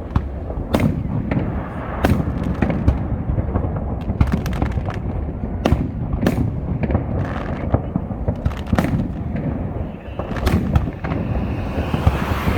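Aerial fireworks going off: many sharp bangs at irregular intervals over a continuous low rumble of explosions, with a hissing crackle building near the end.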